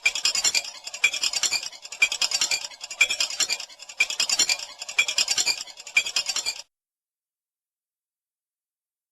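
Cartoon sound effect: a fast scratchy, clinking clatter that swells about once a second, cutting off abruptly about two-thirds of the way in, followed by dead silence.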